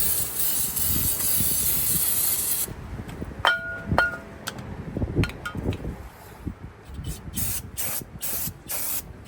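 Aerosol cleaner sprayed onto a freshly deglazed brake rotor: a steady hiss for the first few seconds that cuts off, then a couple of ringing metallic clinks, then about five short spurts of spray near the end.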